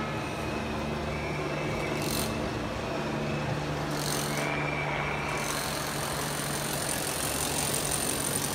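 A steady low engine drone, like an idling heavy vehicle, under the even murmur of a large street crowd.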